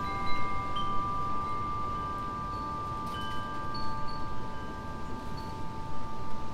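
Wind chimes ringing: several long, overlapping tones hold and fade, and a few short higher pings come and go, over a low background rumble.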